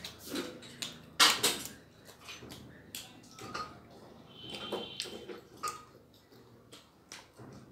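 A large metal plate set down on a table with one sharp knock about a second in, followed by scattered small clicks and soft eating noises as food is mixed and eaten by hand.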